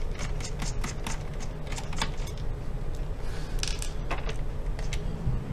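Irregular small clicks and ticks of a screwdriver backing screws out of the plastic underside of an Acer Aspire E15 laptop, over a steady low hum.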